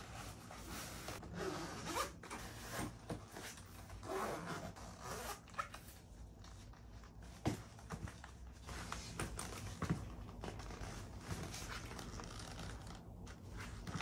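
Irregular rustling and scraping handling sounds with a few sharp clicks.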